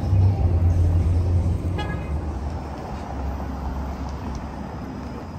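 Street traffic: a motor vehicle passing with a low rumble that eases off after about three seconds, and a short high-pitched beep about two seconds in.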